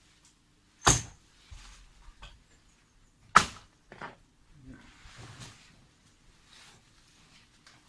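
Two loud, sharp strikes about two and a half seconds apart, followed by a lighter knock and some scraping: hand-tool blows during work clearing out a laurel hedge.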